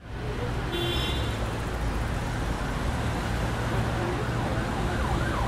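Steady, loud noise with a low rumble, like road traffic, and a wavering siren wail near the end.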